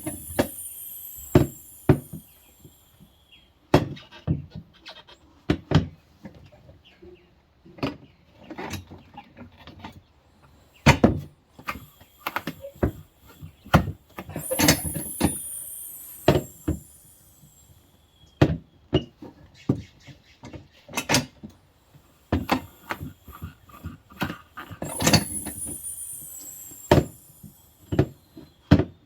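Manual tire changer's bead breaker being worked round a tire that has not yet broken its bead: irregular metal clanks and knocks, with a high squeal falling in pitch three times, at the start, about halfway and near the end.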